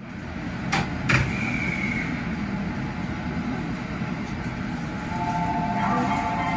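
Ambience around a JR Central 313 series electric train standing at a station platform: a steady low hum, two sharp clicks about a second in followed by a short high tone, and a steady two-note electronic tone near the end.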